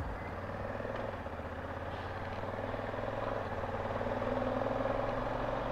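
Honda Africa Twin motorcycle engine running steadily with an even pulse, its sound swelling slightly toward the end.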